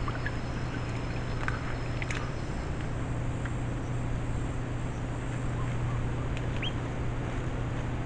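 Outdoor ambience with a steady low hum, a thin high insect buzz that stops about three seconds in, and scattered faint clicks and short chirps.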